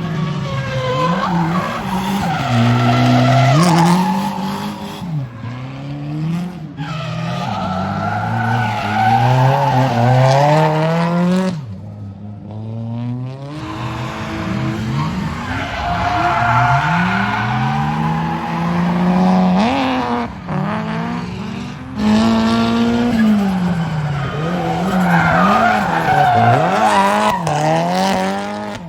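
Drift cars' engines revving hard, their pitch climbing and dropping over and over with the throttle, over the squeal of sliding tyres. The sound breaks off and starts again twice.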